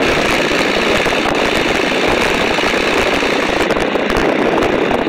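de Havilland Tiger Moth's Gipsy Major four-cylinder inverted inline engine running steadily in cruising flight, mixed with the rush of air past the open cockpits.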